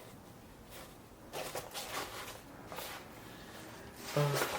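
Nylon backpack being handled: a few short rustling scrapes of fabric and straps, with a brief vocal sound near the end.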